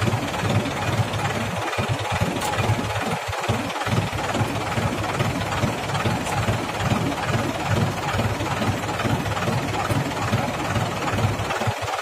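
Mahindra tractor's diesel engine running steadily at idle while its hydraulic tipping trailer is raised to dump a load of mud.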